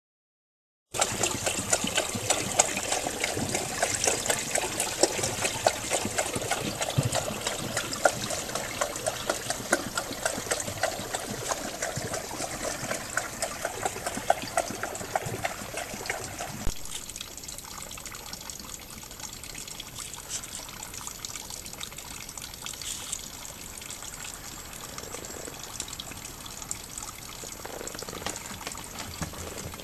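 Water splashing and dripping busily, as many quick small splashes. A little past halfway it changes to a quieter trickle: a thin stream falling from a stone fountain's spout into its basin, the fountain fed by a water-wheel-driven Archimedes screw pump.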